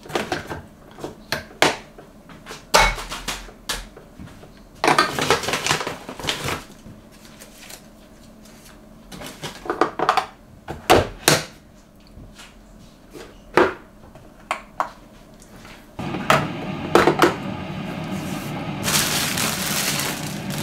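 Clicks and knocks of a single-serve pod coffee machine's lid and pod holder being opened, loaded and shut, and items set down on a stone countertop. After about sixteen seconds the machine starts brewing with a steady hum and hiss, and plastic bag crinkling joins it near the end.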